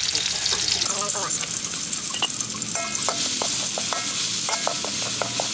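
Garlic and crushed red chili sizzling in hot oil in a steel wok. From about halfway through, a metal utensil stirs them, with short ringing clinks as it strikes the pan.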